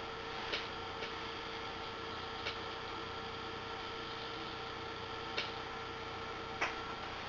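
Steady electrical hum with a few light clicks at irregular intervals, five in all, two of them louder.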